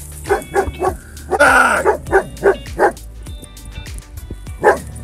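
A dog barking at a cougar that has come close, warning it off: a run of three quick barks, a longer, harsher one, three more quick barks, then a single bark near the end.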